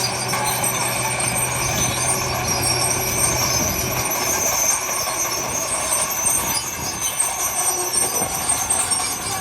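Heavy diesel construction machinery running, with a steady high metallic squeal over the rumble; the low engine tone drops away about four seconds in.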